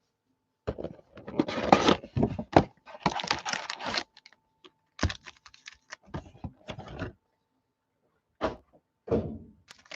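Trading card boxes and packs being handled and opened on a desk: a few seconds of rustling and tearing, then scattered knocks and clatter.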